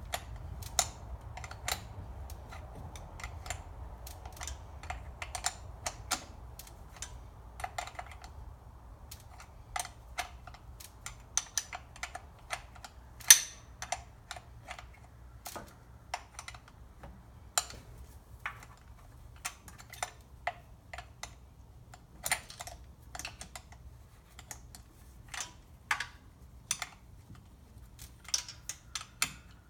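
A hand ratchet clicking in short, irregular runs as a thermostat housing bolt on a small-block Chevy 350 is tightened, over a low steady hum.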